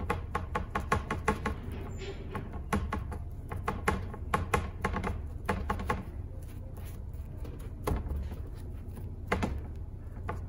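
Paintbrush dabbing and scrubbing paint onto a panel with a textured gesso ground, making irregular clusters of short taps and scratches. A steady low hum runs underneath.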